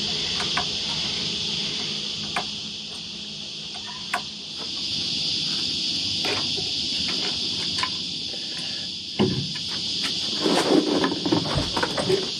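Steady high-pitched buzzing of insects throughout, with scattered clicks and knocks of metal parts being handled. From about ten seconds in comes a quick run of clicking and rattling as a hand-cranked davit winch is wound.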